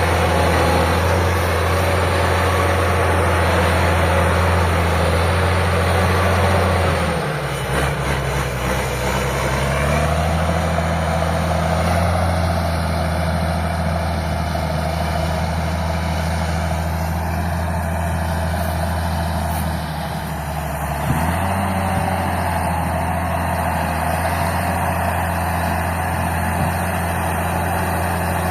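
Old Caterpillar D6 crawler tractor's diesel engine running with a deep rumble. It holds a steady speed, drops off about seven seconds in and picks up again around ten seconds, with another brief dip and recovery near twenty-one seconds.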